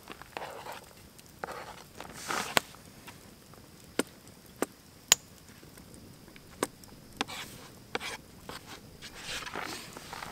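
Knife cutting food on a plastic cutting board: a handful of separate sharp knocks spread through the middle, with softer scraping and rustling between them.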